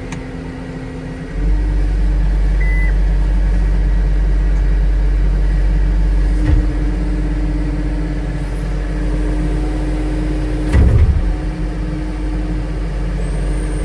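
Diesel engine of a John Deere 332G skid steer running, stepping up to a higher, louder speed about a second and a half in as it is throttled up. A few short clunks come through around the middle and again near the end.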